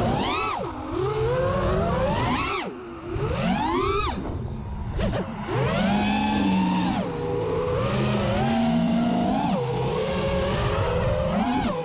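Five-inch FPV freestyle quadcopter's T-Motor F40 II brushless motors (2400 KV) spinning HQ 5x4.3x3 tri-blade props, heard from the onboard camera: a whine that rises and falls sharply with throttle punches three times in the first five seconds, then holds steadier with smaller swells.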